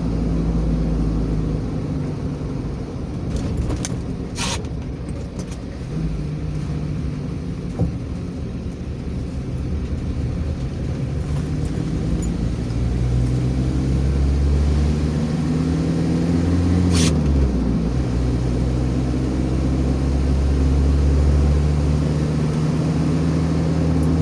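Vehicle engine and road noise from inside a moving vehicle. The engine note climbs for a few seconds, drops suddenly about two-thirds of the way through, then holds steady. There are a couple of brief clicks.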